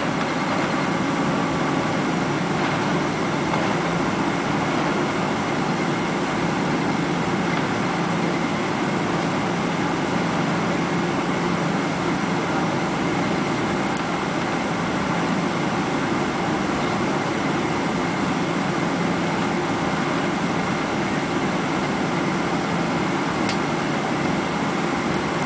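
Steady cabin noise inside a Boeing 777 taxiing after landing: the jet engines running at low taxi power under the hum of the cabin air conditioning, with a faint steady whine.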